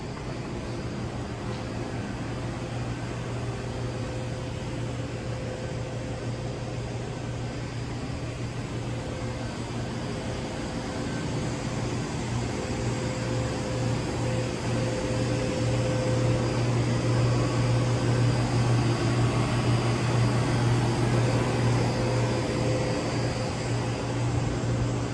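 Steady low hum of building mechanical equipment, growing louder about halfway through, with a fainter steady higher tone over it.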